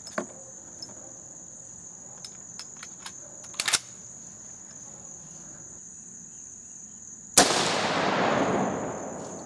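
A Marlin Model 336 lever-action rifle in .30-30 Winchester fires a single shot about seven seconds in, and the report dies away in a long echo over about two seconds. A steady high insect trill runs underneath, with a few small clicks earlier on.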